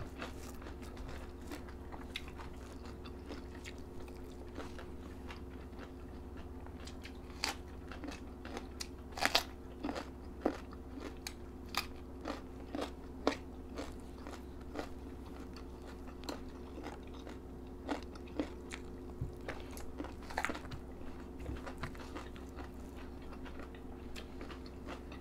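Close-up crunching and chewing of raw vegetables: irregular crisp bites, loudest in a cluster around the middle, over a steady low hum.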